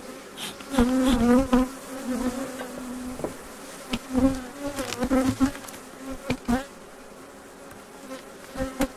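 Honeybees buzzing close around the microphone, single bees flying past so the buzz swells and fades with small shifts in pitch. A few short, sharp knocks are heard among the buzzing.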